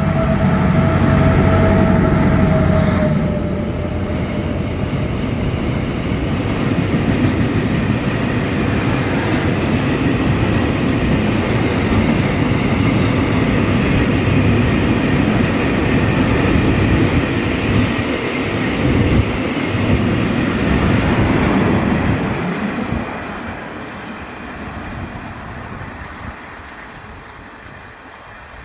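Diesel-hauled freight train of cement-powder wagons passing close by. The locomotive's engine throbs loudly for the first few seconds with a steady tone above it. Then the wagons roll past with rail clatter and wheel noise, fading away after about 22 seconds.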